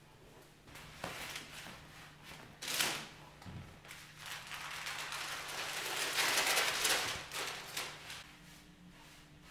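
Sheets of cloth or paper being handled on a table: a sharp knock a little before three seconds in, then rustling that swells for a few seconds around the middle and fades.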